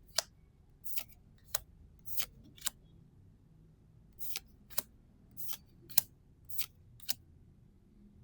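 Gundam Card Game trading cards being flicked over one at a time from an opened booster pack: eleven short, crisp snaps, about two a second, with a pause of a second and a half near the middle.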